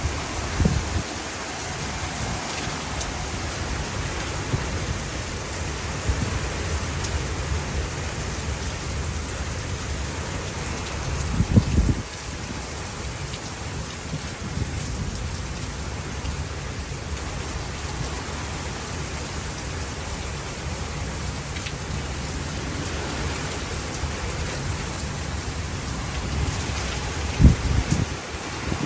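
Heavy rain falling steadily in a thunderstorm, with strong gusty wind buffeting the microphone. Two brief louder low bursts stand out, one near the middle and one near the end.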